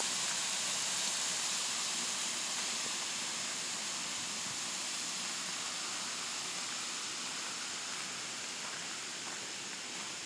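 Steady rush of flowing water, slowly growing fainter.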